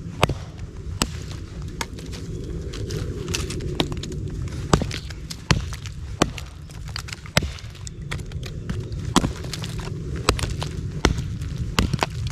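Wood being chopped with a cutting tool into small fire pieces: irregular sharp knocks, a few in quick pairs, over a low steady rumble.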